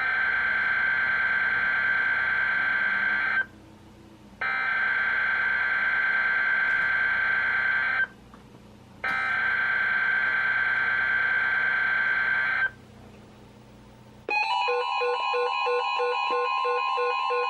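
NOAA Weather Radio SAME alert header for a Flash Flood Watch: three identical bursts of screeching digital data, each about three and a half seconds long, a second apart. About fourteen seconds in, a steady alert tone starts together with the weather radios' own pulsing alarm beeps.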